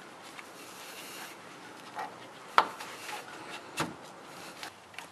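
Rubber lower radiator hose being worked onto the radiator outlet by hand: faint rubbing with a few sharp clicks and knocks, the loudest about two and a half seconds in.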